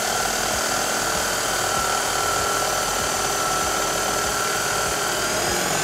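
Corded electric carving knife running with a steady motor whine as its reciprocating blades saw through seat foam.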